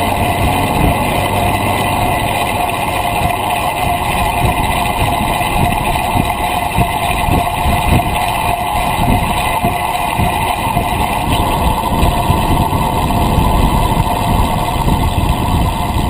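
Road bicycle rolling along smooth asphalt at speed: wind rush and buffeting on a fork-mounted action camera's microphone, with a steady hum from the front tyre on the pavement.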